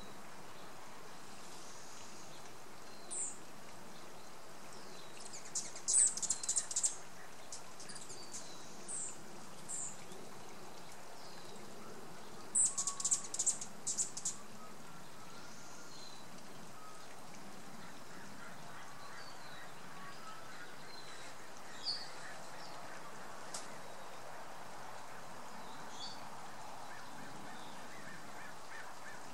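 Birds chirping over a steady background hiss, with two bursts of rapid, high chirps about six and thirteen seconds in and a few scattered single chirps.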